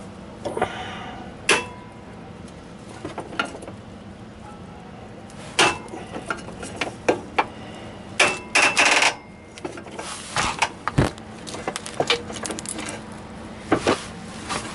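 Seized top transmission-to-engine bolt on a Mazda RX-8 cracking as it breaks loose under a breaker bar on a long run of extensions: a series of sharp metallic cracks and clicks, with a dense run of them about eight seconds in. The cracking is the fastener breaking free.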